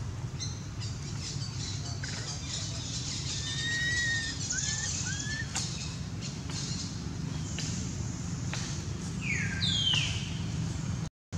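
Birds chirping: a few short arcing calls in the middle and two quick falling calls near the end, over a steady low hum.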